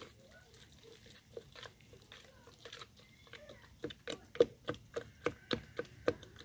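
A metal utensil stirring and pounding chopped pineapple in a soft green mash inside a plastic jug. Soft irregular taps and squishing at first, then regular knocks about three a second from about four seconds in.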